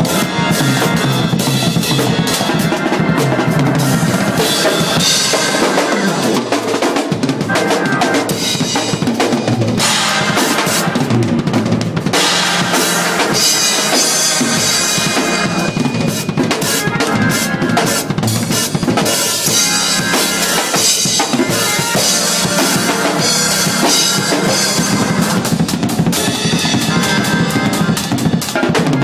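Acoustic drum kit played hard and fast in gospel shed style: dense snare and tom fills over the bass drum, with crash cymbals ringing almost the whole time and no pause.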